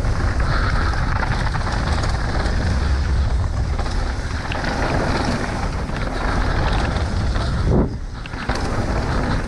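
Wind rushing over a rider-mounted camera microphone with the rumble of mountain bike tyres on a dirt trail during a fast downhill run. The noise eases briefly about eight seconds in.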